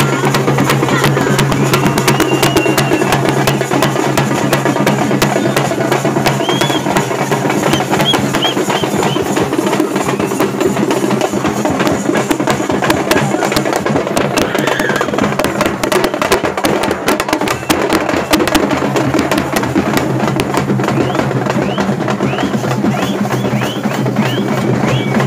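Festival procession drumming: a fast, dense drumbeat played without a break, with the chatter of a large crowd mixed in.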